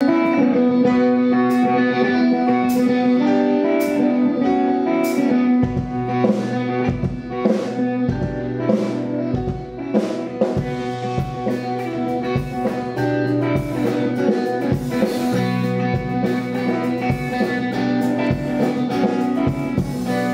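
Instrumental song intro from a band, with no singing: held chords with a sharp percussion hit about every second, then bass and a fuller drum beat joining about six seconds in, guitar prominent.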